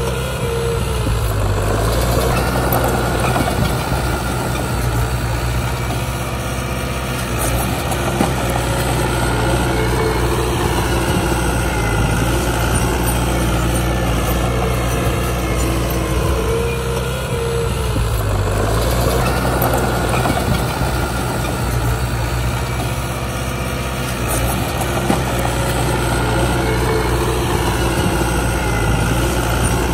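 Heavy diesel engine of a bulldozer running steadily, its note shifting briefly about a second in and again just past halfway.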